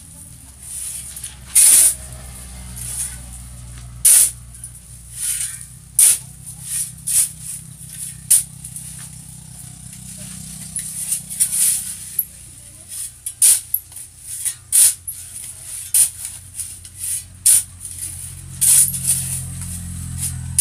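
A steel shovel scraping across a concrete floor and biting into a loose gritty pile, in short hissing strokes about once a second, some harder than others.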